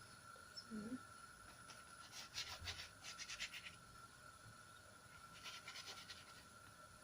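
Faint scratching and rustling from handling the frying yufka pastry in the pan, in two short spells of quick strokes, the first longer, over a faint steady high whine.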